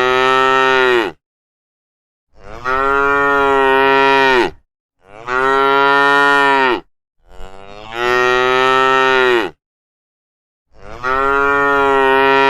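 Cow mooing: a string of long, drawn-out moos, each about two seconds and fairly steady in pitch after a short rise at the start, coming roughly every two and a half seconds with dead silence between them.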